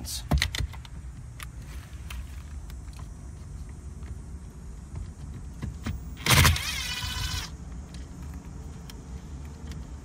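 Plastic steering-column parts and wiring connectors being handled, with scattered light clicks and knocks. About six seconds in there is a short mechanical whir lasting a little over a second.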